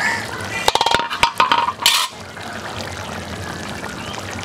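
Metal spoon stirring through thick curry and clinking against a metal karai: a quick run of clinks and scrapes with a ringing metallic tone in the first two seconds, then only a steady background hiss.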